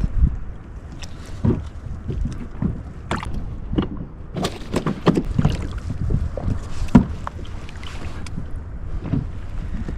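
Irregular knocks and bumps on a fishing kayak, busiest in the middle and sharpest about seven seconds in, over a low rumble of wind on the microphone.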